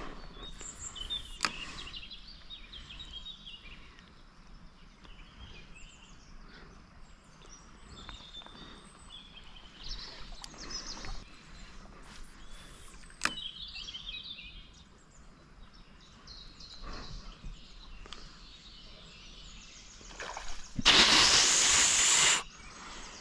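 Small birds chirping now and then over a faint outdoor background, with a couple of sharp clicks. Near the end comes a loud rustling burst of noise lasting about a second and a half.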